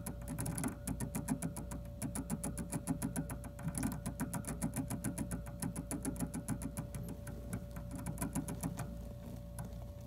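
A colour gerbil licking water from the metal spout of its cage water bottle: quick, even tongue clicks, several a second, which stop shortly before the end.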